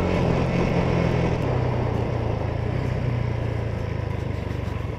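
Yamaha Sniper 150 motorcycle's single-cylinder engine running steadily under the rider, over a haze of wind and road noise, slowly getting quieter.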